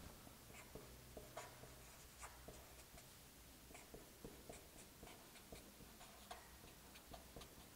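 Felt-tip marker writing on paper: faint, short, scattered strokes and taps as the letters are drawn.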